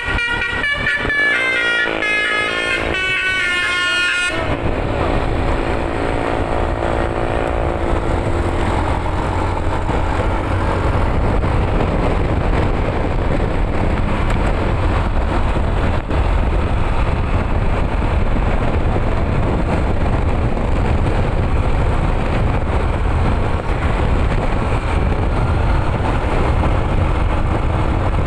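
A bus's telolet horn playing a quick stepped melody of high horn tones, cut off about four seconds in. It is followed by the steady low rumble of the bus driving along, engine and road noise.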